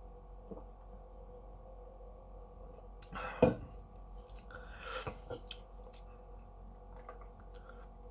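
Beer sipped from a stemmed glass, then a sharp knock about three and a half seconds in as the glass is set down on the table, and a breath out about five seconds in, over a steady low hum.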